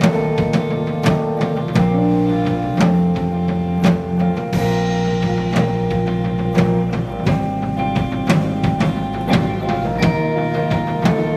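Rock band playing live: a drum kit beating a steady pattern under sustained guitar and bass notes.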